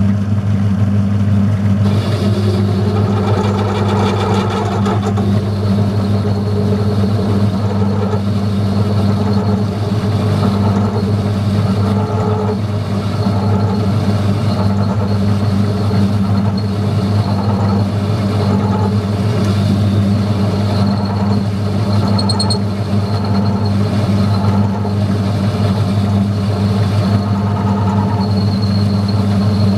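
Metal lathe running steadily with its motor and drive humming, turning a steel shaft while the tool takes a cut to form a shoulder; a faint high tone from the cut comes and goes.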